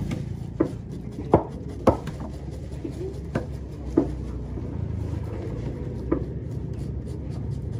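A knife blade knocking on a thick wooden chopping block as a tuna loin is cut into chunks: about six sharp, irregular knocks, the loudest two close together between one and two seconds in, over a steady low rumble.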